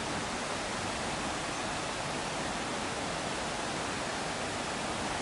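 Steady rushing of the Ayung River's flowing water, an even, unbroken hiss.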